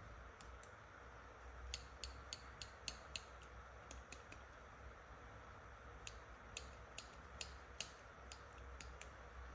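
Sharp, light plastic clicks from handling a toy hairdressing set, coming in two irregular runs of about two to three clicks a second, over a faint steady hiss.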